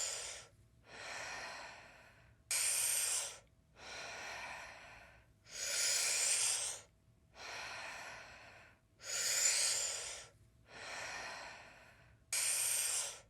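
A person doing deep, rhythmic Wim Hof-style breathing. The breaths alternate between louder and softer ones, about one full breath every three seconds, with four or five cycles heard.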